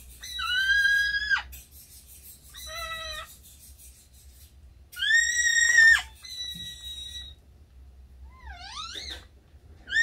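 A quaker parrot (monk parakeet) giving a string of separate whistled calls, each held at a steady pitch for about a second, the loudest about halfway, then a few quick rising chirps near the end. The calls are its mimicry of other birds.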